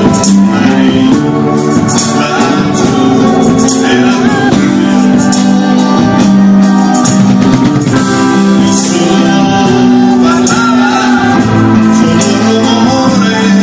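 Live band music: a man singing a melody over acoustic and electric guitars, with percussion hits.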